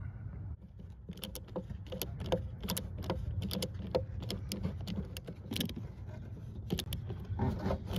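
Hose clamp pliers and spring hose clamps clicking and clinking as new clips go onto the heater hoses: a quick, irregular run of sharp clicks.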